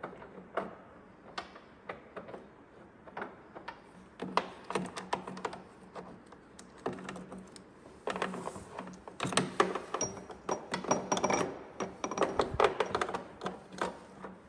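Hand tools and metal chain case parts clicking and clinking during snowmobile chain case work. The clicks are sparse at first, then come in quick, louder runs from about eight seconds in until shortly before the end.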